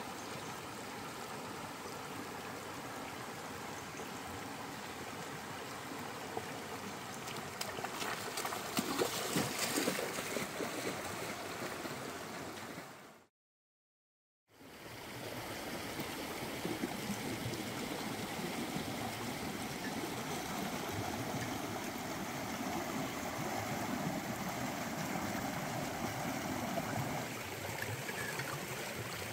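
Shallow rocky stream running over stones, a steady rush and babble of water, with a few seconds of louder splashing before the middle. The sound drops out completely for about a second halfway through, then the stream noise resumes.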